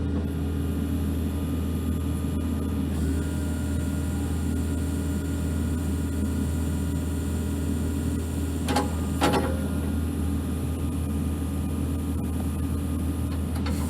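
New Holland E55BX mini excavator's diesel engine running steadily at idle, with two short clicks about nine seconds in.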